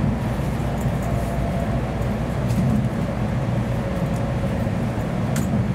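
Steady low rumble of an N700 series 8000 Shinkansen train running, heard inside the passenger car, with a faint click about five seconds in.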